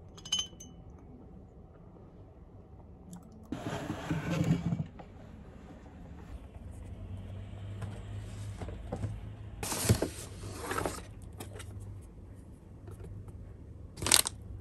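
A spoon clinks once against a glass dessert cup, with a short ring. Then a paper shopping bag rustles in three separate bursts as it is lifted by its handles and things are taken out of it.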